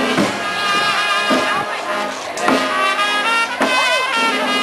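Brass band playing a slow procession march, with held, wavering brass notes.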